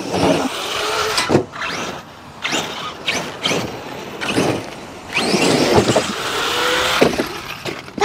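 ARRMA Kraton and Outcast 8S brushless electric RC trucks driving hard on loose dirt: repeated surges of rising electric-motor whine as they accelerate, with the rush of tyres throwing dirt.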